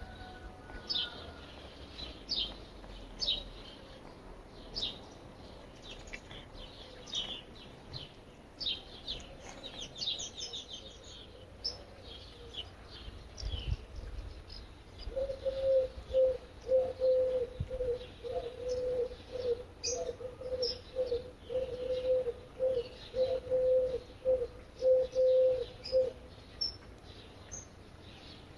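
Wild birds chirping and twittering with short high notes. From about halfway in, a low call repeats about twice a second for some ten seconds and then stops; it is the loudest sound.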